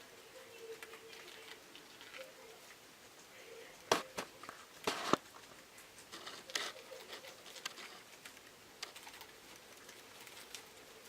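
Guinea pigs moving about in their enclosure: scattered light rustling and pattering, with two louder rustles or knocks about four and five seconds in, over a faint steady hum.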